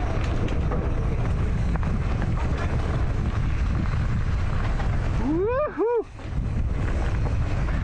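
Wind buffeting a helmet-mounted microphone over an enduro motorcycle riding a dirt trail: a dense, steady low rumble. About five seconds in, the rider gives a short high whoop that rises and falls twice.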